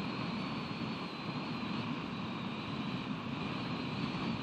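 Steady low noise of wind on an outdoor nest-camera microphone, with a faint thin high whine running through it.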